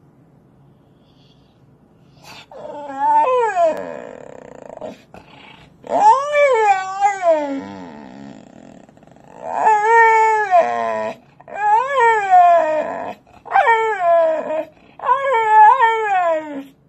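Bull terrier howling and whining in six drawn-out calls, each rising and then falling in pitch, starting about two seconds in.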